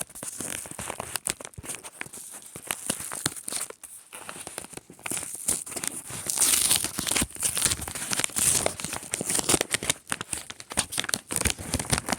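A mailed package being torn open and its paper or plastic wrapping crinkled by hand, with irregular tearing and rustling that gets loudest about halfway through.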